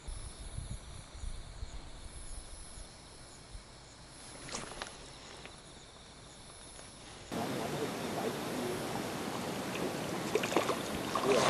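Quiet outdoor ambience, a faint hiss with a few soft clicks. About seven seconds in it turns to a louder steady hiss, with a cluster of small clicks and knocks near the end.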